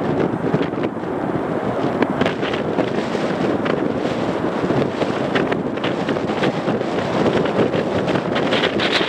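Strong wind buffeting the microphone in crackling gusts, over the steady noise of a Boeing 727's three rear-mounted jet engines as it rolls along the runway.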